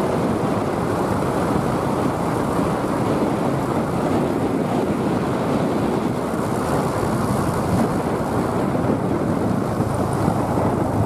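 Steady wind rush buffeting the microphone of a camera travelling along a paved road on an open vehicle, mixed with the vehicle's running noise.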